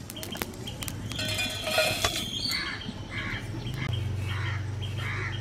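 Dry-roasted whole spices and red chillies tipped onto a steel plate, a brief rattle with a few clicks. Then a bird calls over and over, about twice a second, and a low steady hum comes in near the end.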